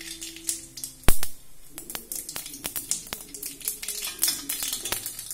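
Mustard seeds spluttering in hot oil in a kadai: many sharp, irregular pops and crackles, with one loud knock about a second in.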